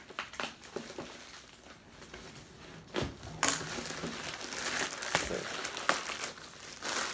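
Packaging crinkling and rustling by hand as a parcel is opened, with scattered clicks and taps, getting busier and louder from about halfway through.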